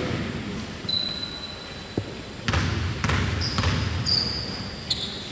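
Basketball being dribbled on a gym's hardwood court, about three bounces roughly half a second apart midway through, each with a hollow echo, along with short high-pitched sneaker squeaks.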